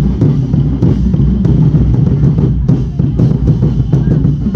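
Festival street-dance drum ensemble playing loud, with bass drums and snare drums beating a continuous rhythm.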